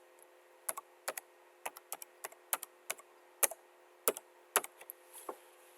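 Typing on a computer keyboard: a run of irregular keystrokes that stops near the end, over a faint steady hum.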